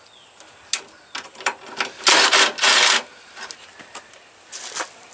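Cordless drill with a socket extension spinning out the 10 mm headlight mounting bolts in short trigger bursts, the longest and loudest lasting about a second starting about two seconds in. Light clicks and rattles follow.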